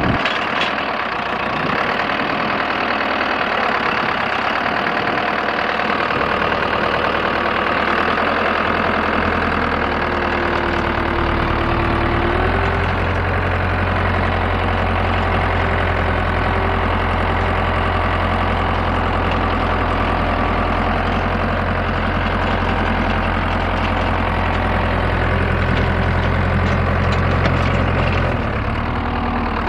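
Skid steer engine running steadily while driving a hydraulic stone burier. A deep drone builds about ten seconds in, holds, and eases off shortly before the end.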